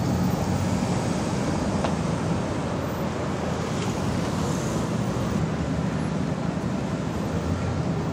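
Steady city street traffic noise as an unmarked Ford Expedition police SUV drives slowly past.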